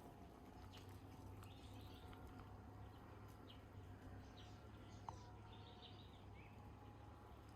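Very faint outdoor nature ambience: scattered short bird chirps over a low steady hum.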